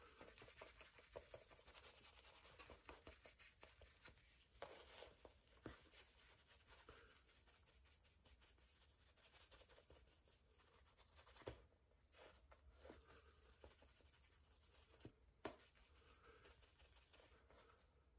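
Faint strokes of 12,000-grit abrasive paper rubbed by hand over a small brass hammer head, polishing it, with a few light clicks later on.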